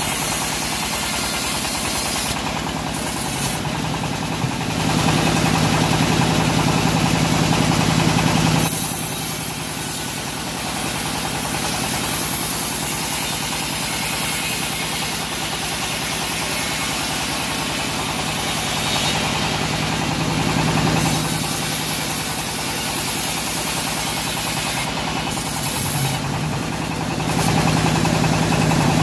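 Homemade engine-driven bandsaw mill running with its blade sawing through a teak log: a steady machine drone that gets louder for a few seconds at a time as the cut goes on.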